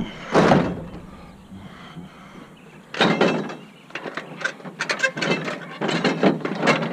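Scrap items being handled and moved: a short clatter about half a second in, then a run of sharp knocks and rattles from about three seconds in.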